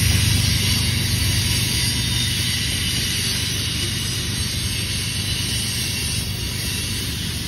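Freight train of covered grain hopper cars rolling past: a steady low rumble and hiss of wheels on rail, slowly getting quieter.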